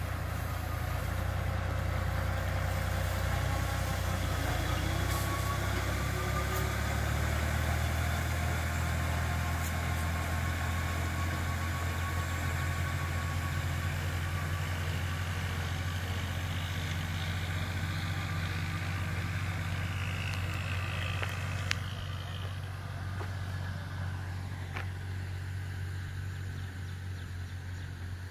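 Tractor engine running with a steady low drone as it drives a boom sprayer through the crop while spraying.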